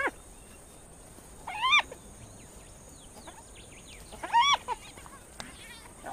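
Spotted hyenas squealing during a squabble: two short high-pitched calls that rise and fall in pitch, about a second and a half in and again past four seconds, with faint small chirps between.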